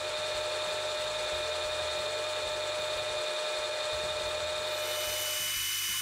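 Metal lathe turning a steel bar, the tool taking a cut that throws hot, blued chips. It makes a steady machine noise with a constant whine over the hiss of the cut, and the whine changes about five seconds in.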